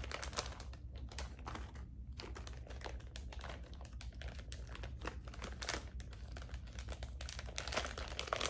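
Thin clear plastic packaging crinkling in the hands as a wax melt is handled, a quick run of small crackles throughout, busiest near the end.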